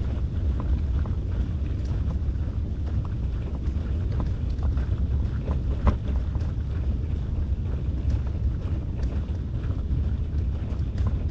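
Wind rumbling on the microphone of a camera carried along a paved road, a steady low buffeting with scattered light clicks and rattles.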